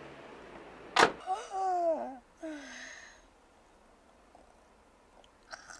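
A pickup truck's rear cab door slammed shut once, about a second in, followed by two short sounds falling in pitch.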